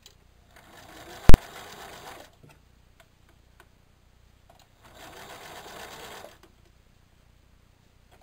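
Electric sewing machine running a zigzag stitch in two short bursts, one about a second in and another around five seconds in. A single very sharp, loud click comes about a second and a quarter in, the loudest sound here, with a few faint ticks between the runs.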